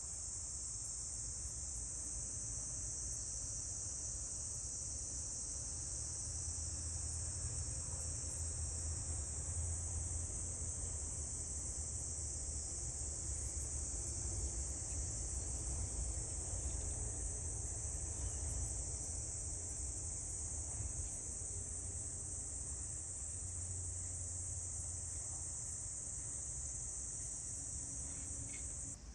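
Steady high-pitched insect trill, like crickets, over a low rumble; it cuts off suddenly near the end.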